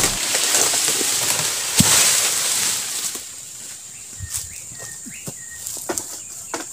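Oil palm fronds rustling as a harvesting sickle on a long pole is worked in the crown, with a sharp knock about two seconds in. After about three seconds it drops to a few scattered light knocks.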